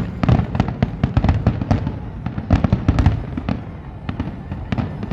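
Fireworks finale: a dense, rapid barrage of bangs and crackling reports, many per second without a break.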